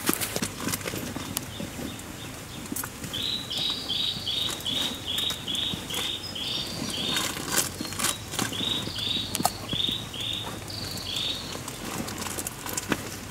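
A bird calling a run of short repeated high notes, about three a second, pausing briefly halfway, over the scattered sharp crackle of a wood campfire.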